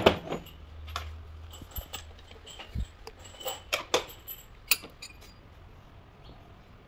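Light metallic clicks and taps from handling the bronze valve plate and parts of a Bondioli & Pavesi axial piston pump, most of them in the first five seconds. A brief low hum sounds about a second in.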